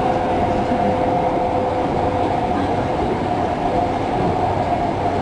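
Singapore MRT train running: a steady rumble with two steady whining tones from the train held throughout.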